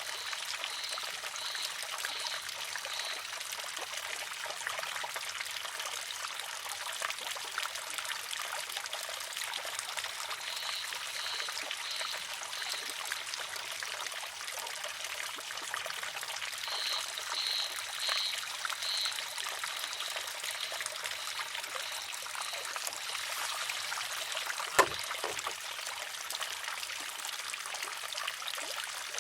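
Water trickling steadily through a wooden shishi-odoshi, with one sharp clack near the end as the filled arm tips over, empties and strikes the stone.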